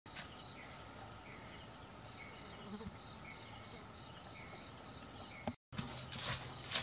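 Insects chirring steadily in the forest, a continuous high-pitched drone with fainter repeating chirps underneath. After a brief dropout near the end, rustling and crunching in dry leaf litter.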